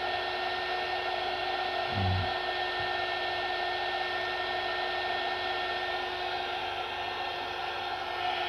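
JIGONG electric heat gun running steadily, its fan motor blowing with a constant hum and whine while it heats plastic until it melts. There is one low thump about two seconds in.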